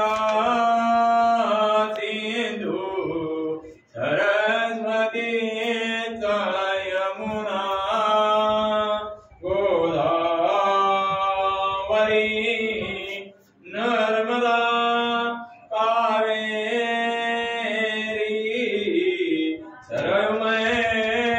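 A single voice chanting wedding verses to a sung melody, in phrases a few seconds long with brief pauses between them.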